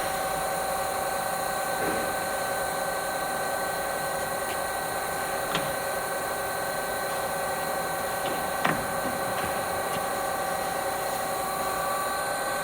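Warner & Swasey lathe running steadily, a constant machine whine made of several steady tones, with a couple of faint clicks.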